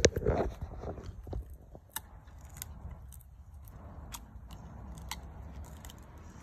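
Six-month-old cane corso x presa canario puppy chewing a dry stick: crackles and crunches of the wood in its jaws, loudest in the first half-second, then sparse sharp snaps.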